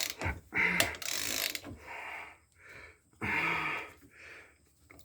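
Ratchet wrench clicking in a series of short strokes as a broken bolt, with a nut welded onto it, is unscrewed from a Volvo steering knuckle.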